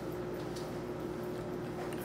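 Steady background room hum with a faint, even tone and a low drone underneath; no distinct knocks, clinks or voices.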